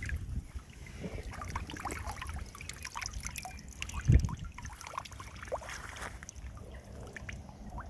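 Water splashing and trickling at the lake's edge, with scattered small clicks and splashes and one louder thump about four seconds in.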